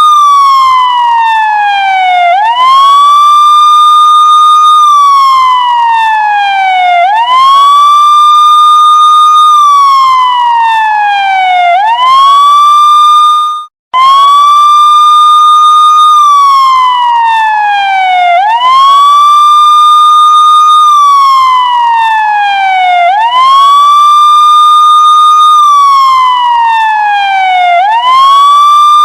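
Police siren wailing: a loud electronic tone sweeps up quickly, holds at the top, then slides slowly down before sweeping up again, about every four and a half seconds. About 14 seconds in, the sound cuts out for an instant and the cycle restarts.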